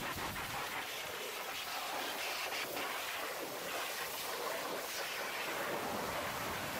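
Pressure washer jet hissing steadily as it sprays water against a truck's engine components and chassis rail.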